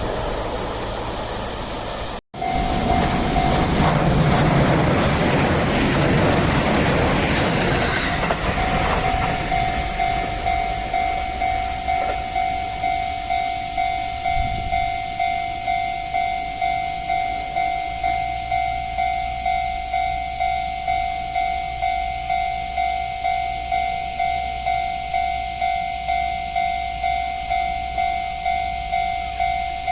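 JR Central 313-series electric train passing over a level crossing, its wheels and running gear rumbling and clattering for several seconds, with the crossing's warning bell ringing throughout. After the train has gone, the bell rings on alone in an even, repeating beat.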